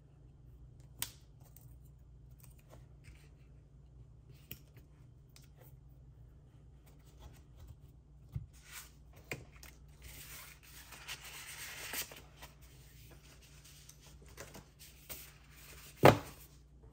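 Paper crafting at a desk: cardstock and tools being handled, with scattered light taps and clicks. A few seconds of paper rustling build up and stop about twelve seconds in, then a single loud thump comes near the end.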